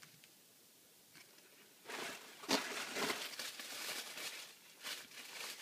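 Faint room tone, then from about two seconds in an uneven run of rustling and crinkling: packaging being handled.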